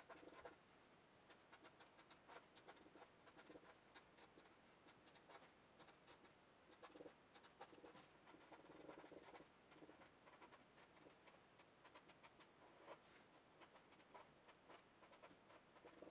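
Faint scratching and tapping of a marker pen writing on paper in many quick, short strokes.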